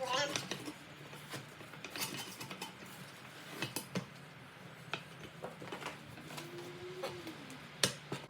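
Steel tire spoons clinking and scraping against the wheel rim and tire bead as a tubeless racing slick is levered on by hand: scattered light metal taps and clacks, with a short squeak at the start and one sharp clack near the end.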